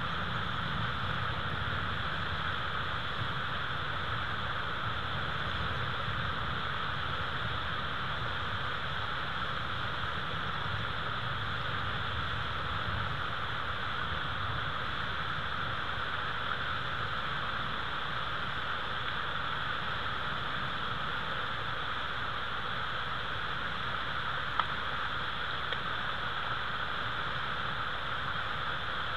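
Steady hiss with a low rumble underneath: the outdoor background noise picked up by a nest camera's microphone, with one faint tick near the end.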